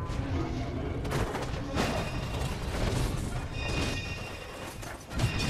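Film soundtrack of a tanker truck and a car crashing down a dirt cliffside: a continuous rumbling crash of metal and earth with a sharp impact about two seconds in, mixed with music.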